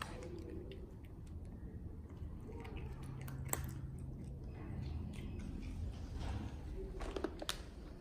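Cat crunching dry kibble off a concrete floor: faint, scattered crunches and clicks.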